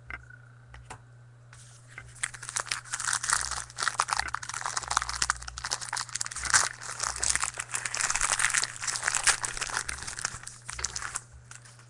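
A trading card pack's wrapper being torn open and crumpled in the hands: dense crinkling and crackling that starts about two seconds in and stops shortly before the end.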